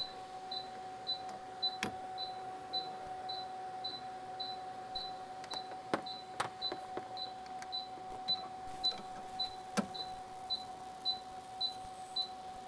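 A few sharp clicks from service couplers being fitted to a car's A/C service ports and their valves opened, over a short high electronic beep repeating about twice a second and a faint steady hum.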